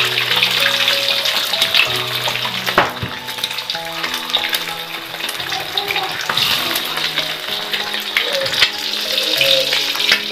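Eggs frying in hot oil in a wok: a steady sizzle with many small pops and crackles. Background music plays under it.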